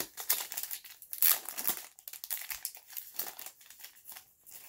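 Crinkling crackle of a baseball card pack's wrapper being torn open and handled, in a rapid irregular run of small crackles.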